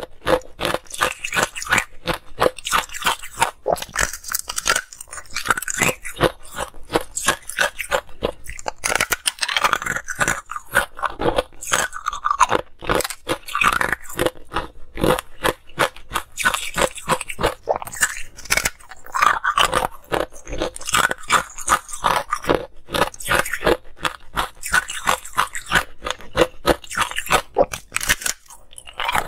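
Hard ice being bitten and chewed close to the microphone: dense, sharp crunching and cracking of a slab of frozen-together ice cubes, going on without a break.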